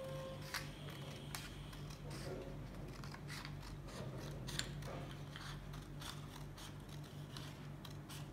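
Scissors snipping through lined paper in a run of short, irregular cuts as strips are cut along the lines.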